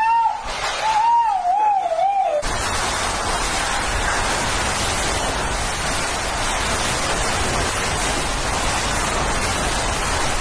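Hurricane-force wind: for about the first two seconds a high, wavering whistle, then a sudden change to a loud, even rush of wind-driven rain with wind buffeting the microphone.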